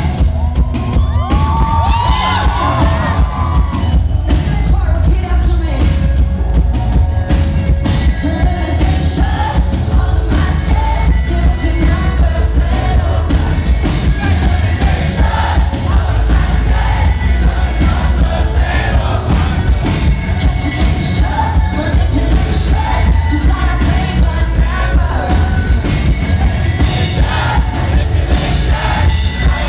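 Live pop-rock band playing at full volume, with heavy bass and drums and a woman singing lead, and crowd noise beneath.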